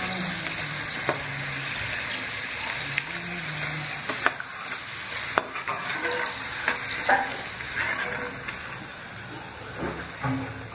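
Papad snack sticks sizzling in hot oil in a frying pan while a steel slotted skimmer stirs them. Sharp metal clicks against the pan come every second or so from about a second in.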